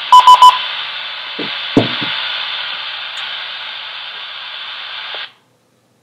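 Kenwood TH-F6 handheld radio's speaker sounding a repeater's courtesy tone, a quick run of short beeps, then the steady hiss of the repeater's open carrier, which cuts off suddenly a little over five seconds in as the repeater drops and the squelch closes. A few faint knocks sound in between.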